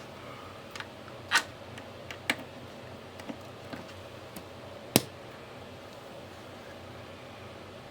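Scattered sharp clicks and taps from handling a small plastic radio and a charging cord on a workbench, about six in all, the loudest about five seconds in, over a faint steady hum.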